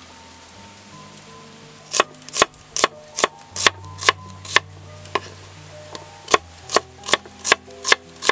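Kitchen knife chopping an onion on a wooden chopping board: sharp knocks about two a second, starting about two seconds in, with a short pause in the middle.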